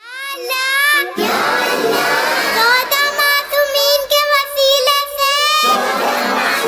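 A young girl's voice singing a dua, an Urdu devotional prayer, with long held, wavering notes.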